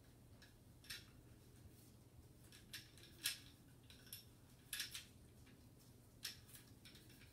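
Faint, scattered clicks and rubbing of a Smith & Wesson Shield 9mm pistol handled and wiped down with a cleaning pad in gloved hands. The sharpest click comes a little past three seconds in.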